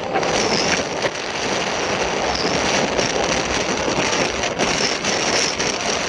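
Steady road and wind noise heard from on board a vehicle driving along a paved road, with a thin high-pitched hum above it that dips slightly now and then.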